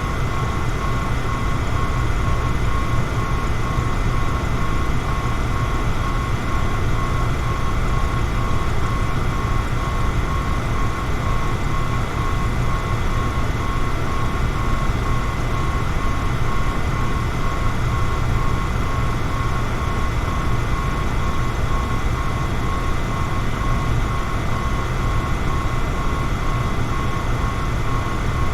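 Electric fan running steadily: a constant airy rush with a strong low rumble and a faint steady whine on top.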